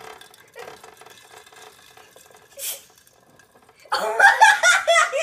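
A hamster's plastic exercise ball rattles faintly as it rolls; about four seconds in, a person breaks into loud giggling laughter.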